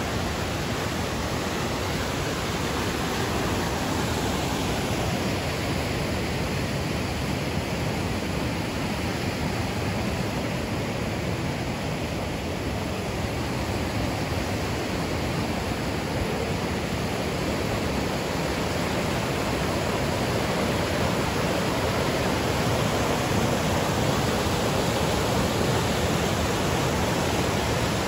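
Granite Falls, a mountain creek cascading over granite slabs, rushing steadily; it grows a little louder in the second half.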